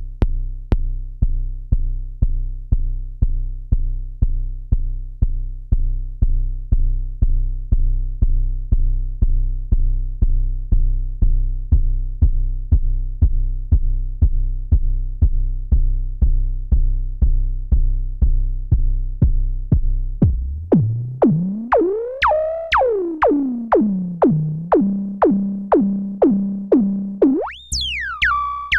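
Behringer Neutron analog synthesizer playing a repeated plucked bass note, about two to three notes a second. About twenty seconds in, the pitch sweeps up and back down, settles on a higher note, then leaps up to a high note near the end.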